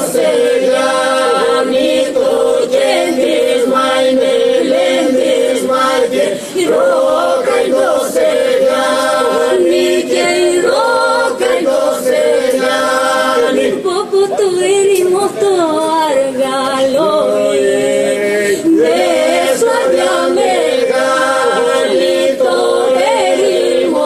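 Epirote polyphonic song: a small mixed group of men and women singing unaccompanied, a steady held drone under a lead voice that rises, falls and turns.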